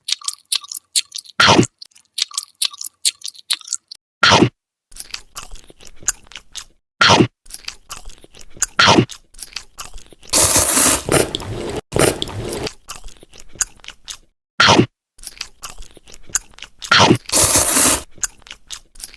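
Close-miked chewing of saucy instant noodles: a steady run of wet, crunchy mouth clicks, broken by several louder noisy bursts, the longest lasting about a second and a half near the middle.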